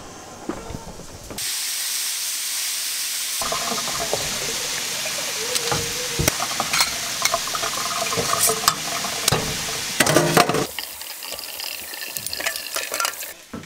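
Kitchen tap running into a stainless steel sink while fresh-picked ears of sweet corn are rubbed under the stream to scrub off the leftover silk, with small clicks and scrapes of the cobs against the sink and bowl. The water starts suddenly about a second and a half in and is quieter for the last few seconds.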